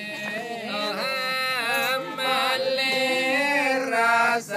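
Voices chanting together in long, held, wavering notes, with a brief pause near the end.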